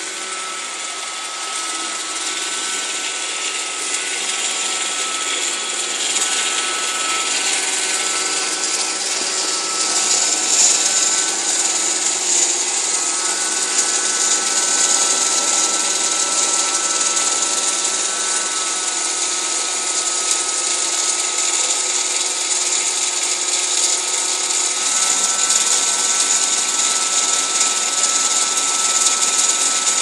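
iRobot Roomba 581 robot vacuum running: its vacuum motor and brushes make a steady whir with a high whine.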